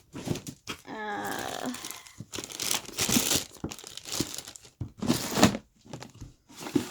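Plastic crinkling and rustling in irregular bursts as small fidget toys and their packaging are handled and sorted, with a brief pitched sound about a second in.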